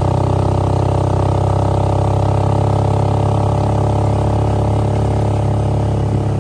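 Motor vehicle engine running steadily: an even, low drone that holds without change.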